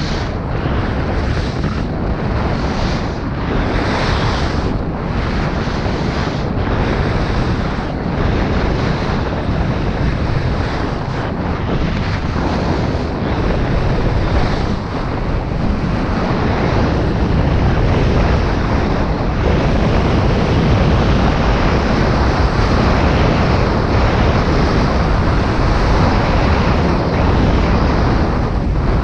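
Wind buffeting the microphone at skiing speed, with the hiss and scrape of skis on packed snow swelling with each turn about once a second in the first half. The rush grows louder and steadier in the second half as the run speeds up.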